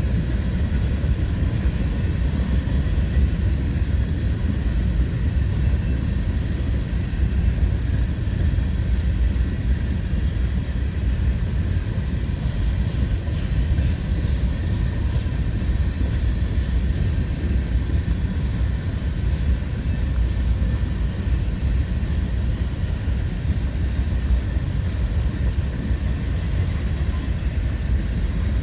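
Freight train cars rolling past, a steady low rumble with no horn.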